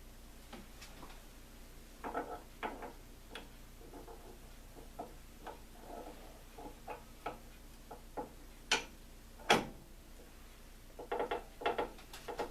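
Light metallic clicks and taps as the greased Aussie Locker parts are handled and fitted into a Dana 35 differential carrier: an axle gear and thrust washer being set in place. Two sharper ticks come together about nine seconds in.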